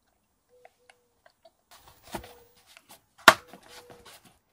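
Plastic oil containers and a drain funnel being handled and set down: scattered clatter from about two seconds in, with one sharp knock a little past three seconds.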